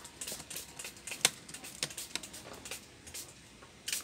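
Scattered light clicks and taps of laptop screws and plastic case parts being handled during reassembly, the sharpest click about a second in and a short cluster of them near the end.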